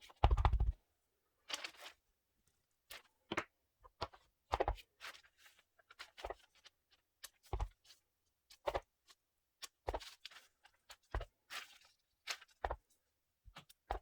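Rubber stamps tapped and pressed by hand onto paper: a run of irregular short taps and soft thuds, with a heavier thud at the very start.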